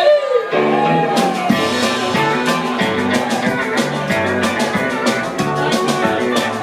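Live country band playing an up-tempo Cajun-style number on electric guitar, upright bass, drums and pedal steel guitar. A long gliding note fades out near the start, and the drums come in with a steady beat about a second in.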